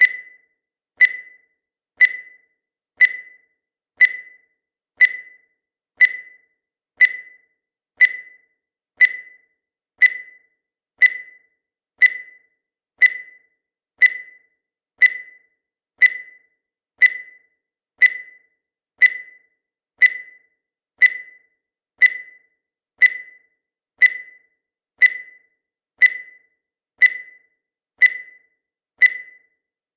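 Countdown timer sound effect: a short, high-pitched tick that dies away quickly, repeating evenly once every second.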